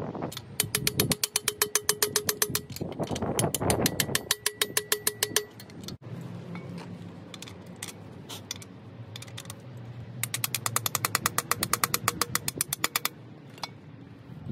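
Ratchet wrench clicking rapidly and evenly, about eight clicks a second, in two runs of several seconds each. The second run starts about ten seconds in.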